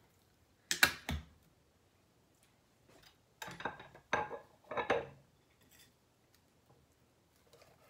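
Tableware clatter: a sharp knock of china or glass set down about a second in, then a table knife cutting and scraping against a plate in a few short strokes.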